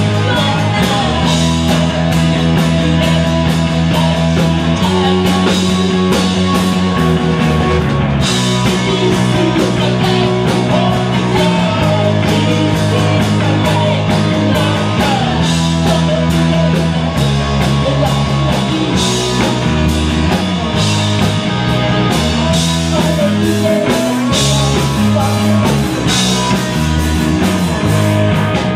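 Live rock band playing: distorted electric guitars, a bass line and a drum kit, with a lead singer's voice at times.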